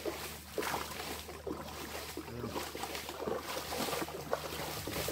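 Water splashing and sloshing as wooden canoes are bailed out by hand with a plastic scoop and a basin, in irregular scoop-and-toss splashes.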